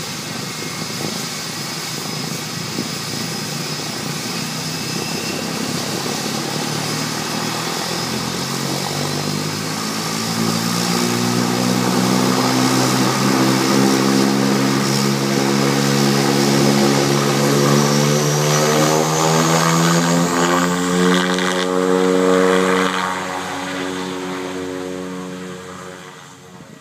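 Pilatus PC-6 Porter turboprop running after start-up: a high turbine whine, then the propeller hum comes in and climbs steadily in pitch and loudness as the engine spools up. Near the end the sound fades quickly as the aircraft turns away.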